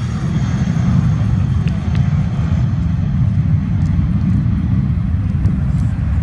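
Airbus A320-233's twin IAE V2500 turbofans at takeoff thrust, a loud, steady deep rumble as the jet rolls down the runway and lifts off. The higher part of the engine noise fades after a couple of seconds as the aircraft moves away.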